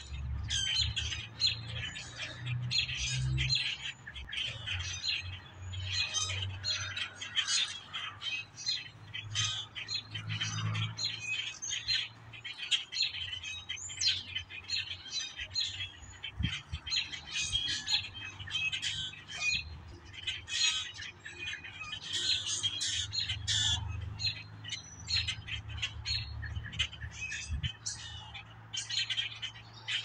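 A flock of blackbirds calling without pause, many short, overlapping calls, over a faint low rumble.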